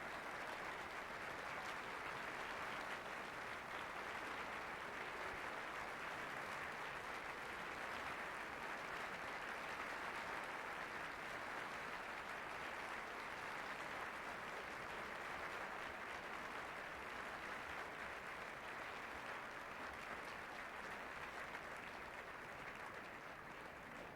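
Concert-hall audience applauding steadily, the clapping beginning to fade away near the end.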